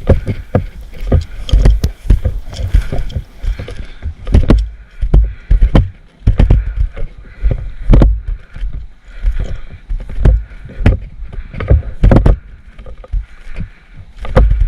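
Irregular low thumps, one or two a second, with rustling in between: footsteps and body movement through brush.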